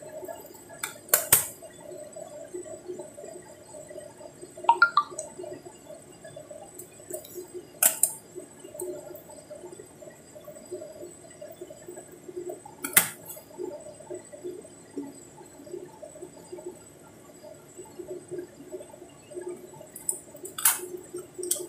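Scissors snipping open plastic seasoning sachets: four sharp snips spaced several seconds apart, with a brief squeak of plastic near 5 s, over a faint steady background noise.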